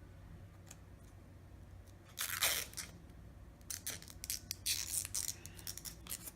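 Crackling and clicking as a replacement Samsung Galaxy S6 screen is lined up and pressed into the phone's frame: one crackle about two seconds in, then a run of sharp clicks and crackles.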